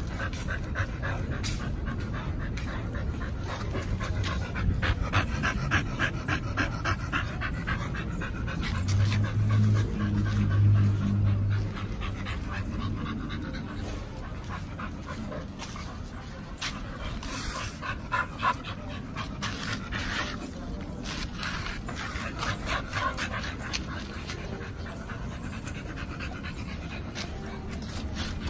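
Pit bull-type dogs panting hard, in a fast, even rhythm of short breaths. About ten seconds in, a low steady hum rises over it for a couple of seconds.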